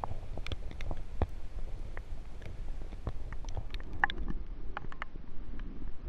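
River water heard underwater through a submerged camera: a steady low rumble of current with scattered short clicks and pops throughout.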